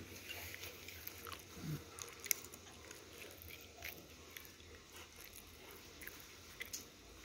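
Quiet mealtime sounds: faint scattered clicks of a spoon, bowls and food shells being handled, with chewing.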